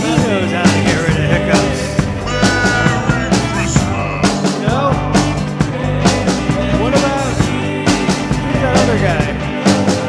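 Rock music with a steady drum beat.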